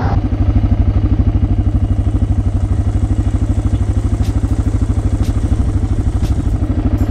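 Motorcycle engine idling with a steady, even pulse, and a few light clicks over it.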